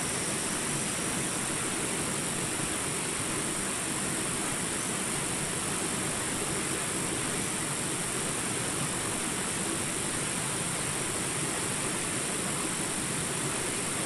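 Shallow rocky stream running over boulders and small rapids: a steady, unbroken rush of water.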